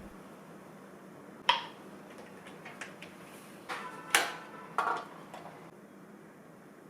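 Tableware clinking several times, a few light knocks and clinks, the loudest about four seconds in, some ringing briefly.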